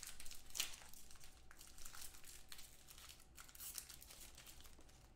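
Foil trading-card pack crinkling and tearing as it is opened by hand: a run of faint, irregular crackles.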